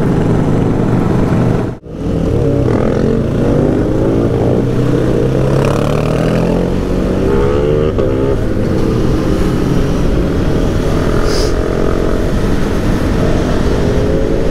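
Vehicle engine accelerating under way, its pitch climbing and dropping back several times as it shifts up through the gears, over steady wind and road noise. The sound cuts out briefly about two seconds in.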